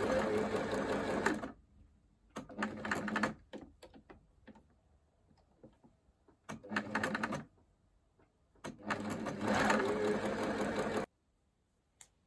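Electric sewing machine stitching in four short runs with brief stops between them, the longest run near the end, then it stops and a single small click follows.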